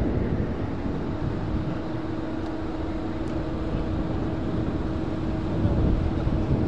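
The two Rolls-Royce AE 2100 turboprop engines of a C-27J Spartan transport aircraft, heard in a low flying-display pass as a steady drone with a held tone over a deep rumble, growing slightly louder near the end.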